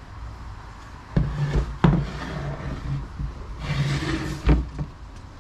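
A plywood board handled on a wooden workbench: two knocks as it is set down, a brief scraping slide as it is turned, then another knock.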